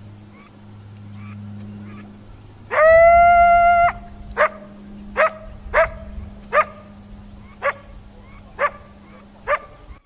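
Coyote vocalizing: a few faint yips, then one loud drawn-out howl about three seconds in, lasting about a second, followed by seven short yipping barks, each dropping in pitch, roughly one a second.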